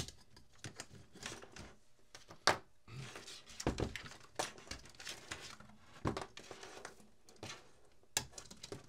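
Handling noise from the wire harness and case of an ATX computer power supply: irregular rustles, clicks and light knocks as the bundle of plastic-sheathed wires is pulled and worked free of its brackets. A sharp click about two and a half seconds in is the loudest.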